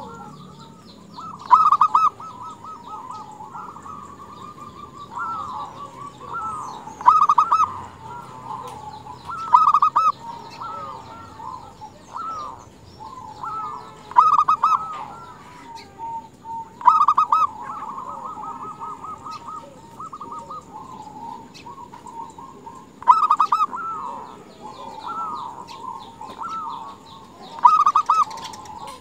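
Zebra dove (perkutut) cooing: a running, soft, rolling trilled coo, broken by about seven louder staccato phrases a few seconds apart. The calls are presented as a female calling to stir males into song.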